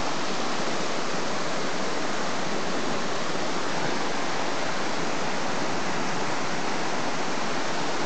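Small woodland waterfall, a brook spilling down a rocky cascade into a pool: a steady rush of falling water.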